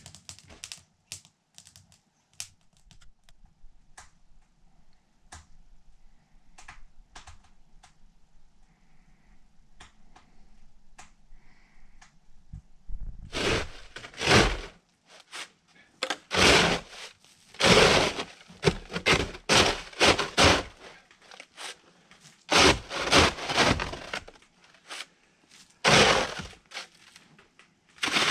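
A snow shovel scraping and crunching through snow in a run of strokes, each about half a second to a second long, starting about halfway through. Before that, a wood stove fire being lit gives sparse, faint crackles and clicks.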